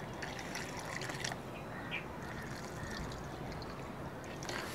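Water poured from a plastic mug onto the soil of a freshly planted rain lily pot, faint and steady.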